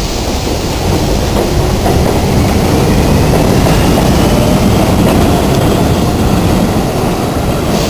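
R62A subway car running on the 7 line after pulling out of a station, wheels clattering on the rails with a faint rising motor whine, heard from inside the car.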